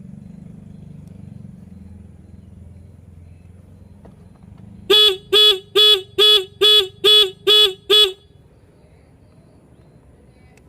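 Motorcycle horn beeping in an even pulse, eight short beeps at about two a second, chopped on and off by a turn-signal flasher relay wired into its circuit. A faint low hum comes before the beeps.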